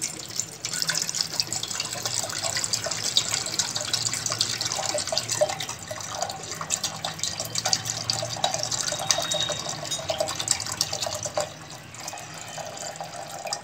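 Water poured in a thin stream into a stainless steel pot, splashing into the water already in it. The pour becomes quieter about two seconds before the end.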